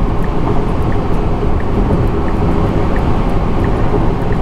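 Steady tyre and wind noise inside a Tesla Model X cabin at highway speed.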